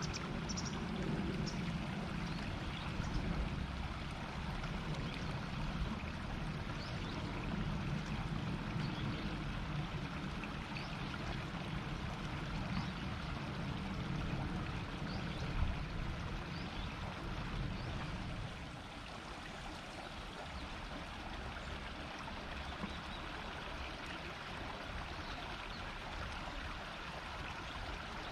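Shallow river murmuring over stones: a steady rush of water. A low rumble under it drops away about two-thirds of the way through.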